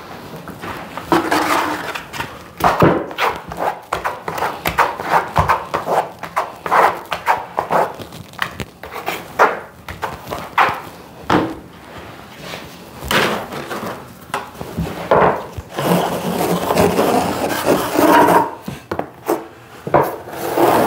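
Steel trowel scraping and slapping wet cement-based floor patch (Ardex Feather Finish) across a particle-board subfloor in quick, irregular strokes, with a few longer drawn-out scrapes.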